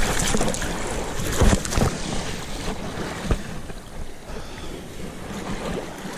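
Shallow surf washing and splashing around wading legs, with wind buffeting the microphone and a few dull thumps about a second and a half in and again near the middle.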